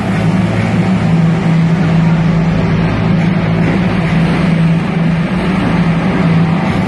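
Several motorcycle engines running together inside a steel mesh globe of death, a loud steady drone that holds one pitch with no breaks.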